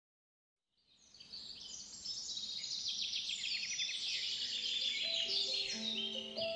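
Birdsong, many quick high chirps, starting about a second in and growing louder; a light melody of held notes comes in about five seconds in.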